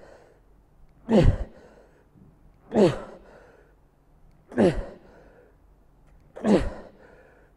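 A man's forceful, voiced exhalations, one on each rep of a heavy bent-over dumbbell row: four short grunting breaths about every 1.7 seconds, each falling in pitch. They are the sound of straining under load near the end of a hard set.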